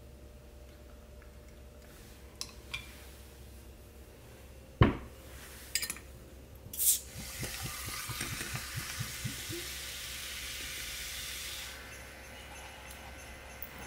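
A bottle cap is pried off with a bottle opener: a sharp click, then a short hiss of escaping gas. Carbonated water is then poured over ice into a glass and fizzes for about four seconds before the pour stops.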